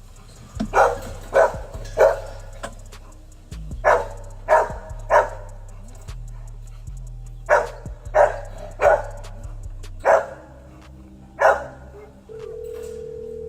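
A dog barking in sets of three, about eleven barks in all, each one short and sharp, over a low steady hum. A steady tone starts near the end.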